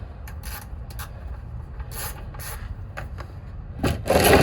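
Ratchet wrench clicking in short, irregular strokes as it works loose an over-tightened oil drain plug, with a louder rushing burst of noise near the end.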